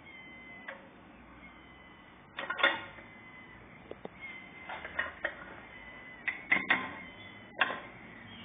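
A cat pouncing and batting at a mouse on wooden boards: a run of sharp knocks and clicks, one cluster about two and a half seconds in and more around the middle and near the end.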